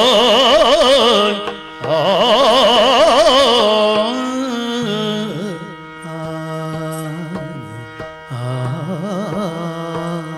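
Yakshagana song: a singer holds long ornamented phrases with a wide, fast vibrato over a steady drone. Two loud phrases come in the first four seconds, and quieter sung lines follow.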